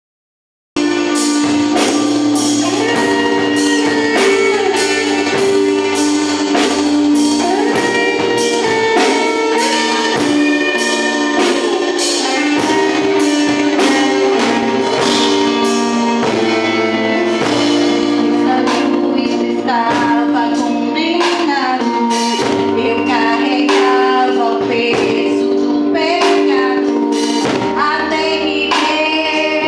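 Gospel worship music played by a band with a steady drum beat, a woman singing over it; it starts about a second in.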